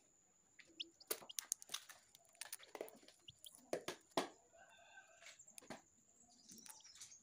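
Sharp clicks and knocks from fingers handling an eggshell, with a few short high peeps from a newly hatched chick.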